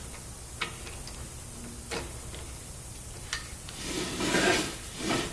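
Hand tapper cutting threads in metal tubing: a few light metallic clicks, then a scraping rasp about four seconds in as the tap is turned.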